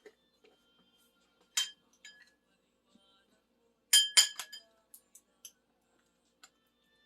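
Eating utensil clinking against dishware with a brief ring: a single clink about a second and a half in, then a quick run of three or four louder clinks about four seconds in, and a few light taps after.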